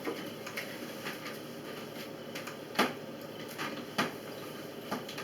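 Scattered light clicks and knocks, with two sharper knocks a little past the middle, typical of things being handled on a table.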